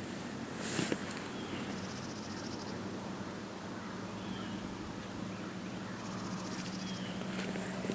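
Birds chirping in short calls every couple of seconds, with a high, rapid trill twice, each about a second long, over a steady low hum. A brief sharp sound comes about a second in.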